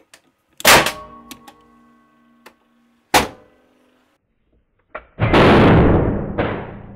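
Loud sharp bang about a second in as a capacitor bank's high-current pulse discharge blows apart an iPod Nano, with ringing that dies away. A second sharp crack comes near three seconds, and a long loud crash starts near the end.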